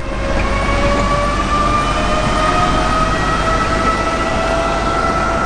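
Mercedes Vision AVTR electric concept car driving: a steady rushing road and wind noise, with a whine of several tones that slowly rises in pitch.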